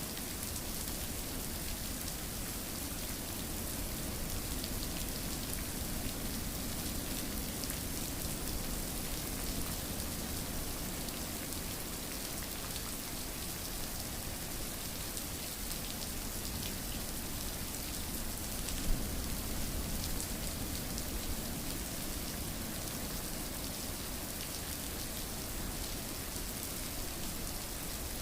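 Steady rain falling on a surface, an even hiss dotted with fine drop ticks, with one louder drip about two-thirds of the way through.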